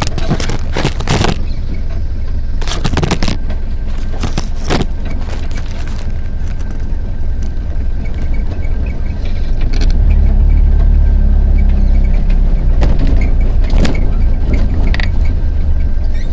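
A vehicle running over a rough off-road track: a steady low rumble of engine and road noise, with sharp clattering knocks as it goes over bumps. The rumble gets louder about ten seconds in.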